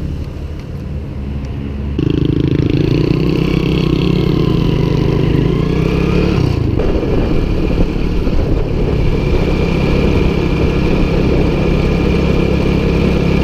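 Small motorcycle engine running while riding, heard from the rider's seat. It is quieter for the first couple of seconds, then louder and steady, with a brief drop in engine pitch about halfway through.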